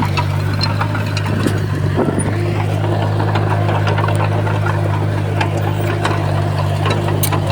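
Heavy diesel engine of earthmoving machinery running steadily with a deep drone, with scattered metallic clicks and rattles over it.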